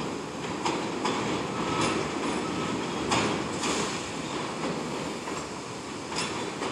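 New York City subway train approaching on an elevated track: a steady rumble of steel wheels on rail, with sharp clacks at uneven intervals as the wheels cross rail joints.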